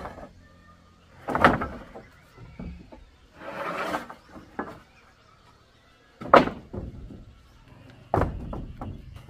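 Irregular wooden knocks and thuds from hand construction work, about five separate strikes, the sharpest about six seconds in, with a rougher scraping sound shortly before the middle.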